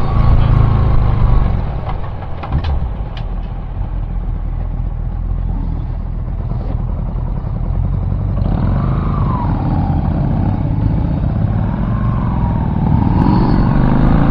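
A car driving, with a steady low rumble of engine and road noise. From about halfway through, a whine that rises and falls in pitch joins in, and the sound grows louder toward the end.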